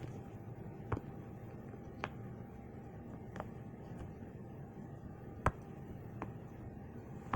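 Bubbles on the quiet side of a silicone pop-it fidget toy being pressed one at a time: about seven short, soft pops at an uneven pace, the loudest about five and a half seconds in. Pretty loud for the quiet side.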